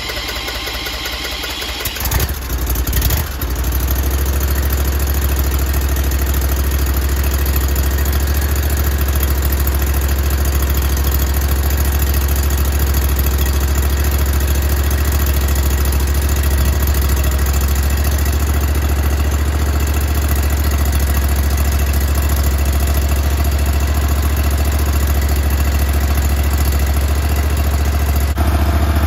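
Briggs & Stratton Vanguard 23 HP V-twin engine, just repowered into a John Deere 318 garden tractor, running right after its first start. It is uneven for a moment about two to three seconds in, then settles into steady running.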